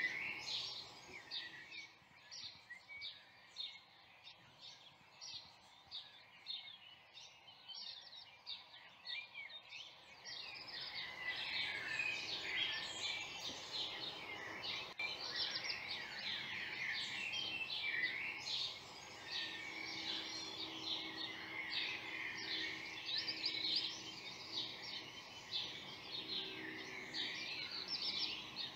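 Songbirds singing: many short chirps and trills overlapping in a chorus, sparse at first and growing dense and louder from about ten seconds in.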